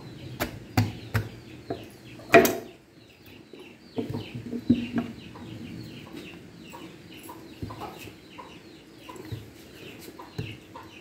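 Chickens clucking over and over, with a few sharp knocks among them; the loudest knock comes a little over two seconds in.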